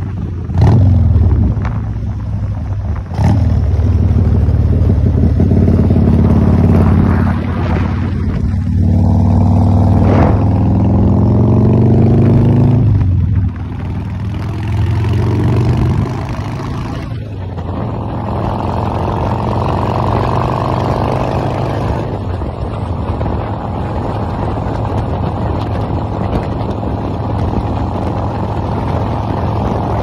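Cruiser motorcycle engine under way: the engine note climbs as the bike accelerates, broken by brief dips at the gear changes. From just past halfway it settles into a steadier drone at cruising speed, with wind rush.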